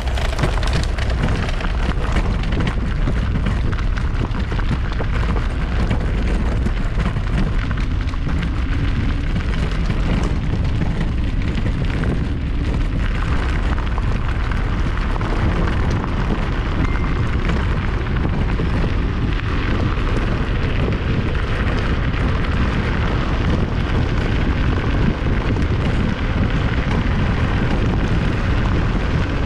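Wind buffeting the microphone on a moving electric scooter: a loud, steady low rumble.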